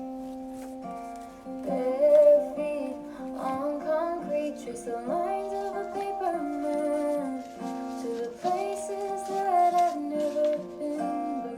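Background song: gently plucked strings holding a steady chord, with a female voice singing a melody over it from about two seconds in.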